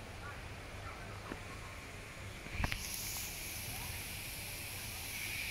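A sharp knock about two and a half seconds in, then a steady hiss that carries on unbroken.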